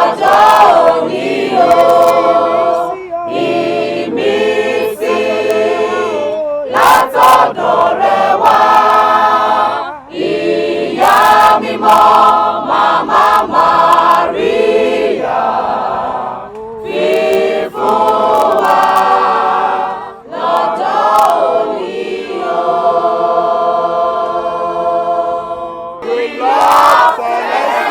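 Church choir singing in harmony, in phrases with short breaks between them.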